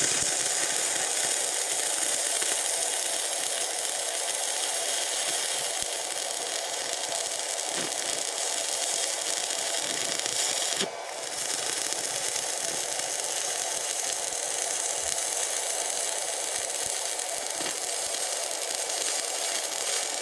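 Steady crackling hiss of a stick-welding (arc) electrode burning as it lays a weld on a steel bush. The arc breaks off briefly about eleven seconds in, then strikes up again.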